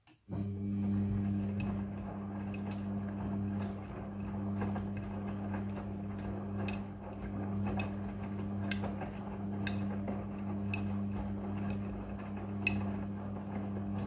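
Front-loading washing machine starting its drum and tumbling the wash load: a steady motor hum that comes on abruptly, with a sharp tick about once a second.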